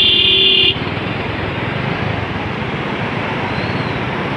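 A vehicle horn held on, cutting off under a second in, over a steady rushing noise of passing traffic and water.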